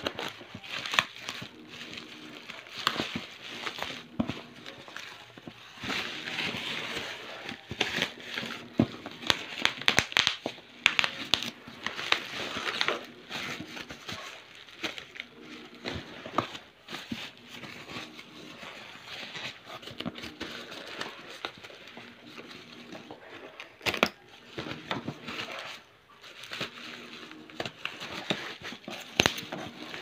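Black plastic bubble wrap being handled and pulled off a cardboard box, giving irregular crinkling and crackling with many sharp clicks.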